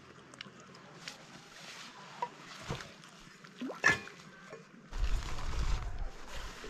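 A backpack being set down on a gravel lakeshore and handled: scattered rustles and light knocks, with one sharper sound a little before four seconds in, then louder rustling with a low rumble from about five seconds in.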